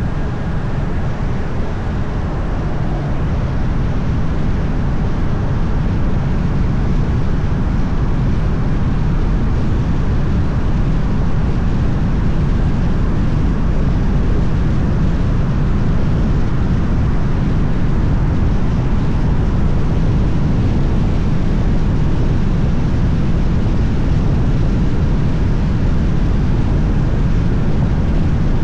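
Moving car heard from a microphone on the edge of its hood, with wind reduction on: a steady low rumble of wind and road noise that grows a little louder over the first few seconds, then holds.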